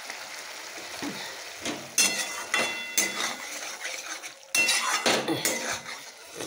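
Metal spatula scraping and clinking against a metal kadai as okra and potato sabji is stirred. The strokes come in two quick runs, starting about two seconds in and again past the middle, each clink ringing briefly.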